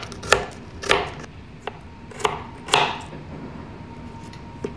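Kitchen knife chopping garlic cloves on a cutting board: sharp chops about two a second, then a pause of a couple of seconds with one light tap near the end.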